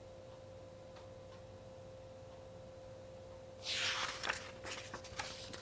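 Quiet room with a faint steady hum, then about three and a half seconds in a picture-book page being turned: a short rustle of paper with a few small ticks, lasting under two seconds.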